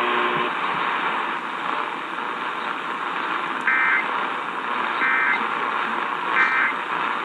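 Three short Emergency Alert System end-of-message data bursts, the two-tone warbling digital code that closes an alert. They sound through hissy AM radio static, each about a third of a second long and a little over a second apart.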